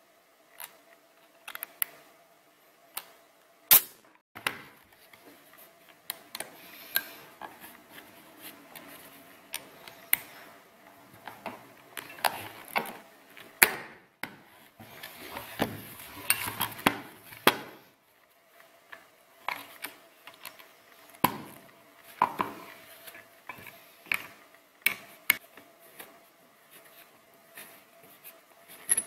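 Handling and taking apart a pneumatic nailer: scattered clicks, taps and knocks of metal and plastic parts, with rubbing and scraping as the cap screws are turned out with an Allen key and the top cap is worked loose. A faint steady hum sits underneath.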